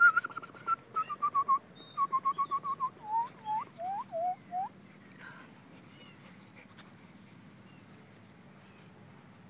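Dog whimpering: a quick run of short, high whines, the later ones sliding downward in pitch, lasting about five seconds before stopping.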